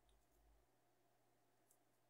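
Near silence: faint room tone with two faint ticks, one at the start and one near the end.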